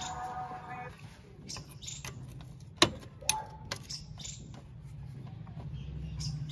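Steel spanner clicking against the 12 mm oil drain bolt of a Honda Activa 6G scooter as the bolt is tightened back in: a few sharp metal clicks, the loudest about three seconds in, with two or three more following.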